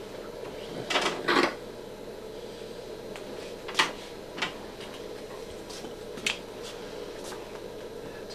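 Steady background hum with short clicks and clatters of instruments being handled. Two louder scratchy noises come about a second in, and single sharp clicks follow a few times after.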